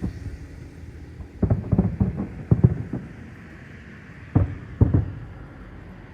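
Aerial fireworks shells bursting overhead with deep booms: a quick string of several bursts about a second and a half in, then two more single bangs a little later.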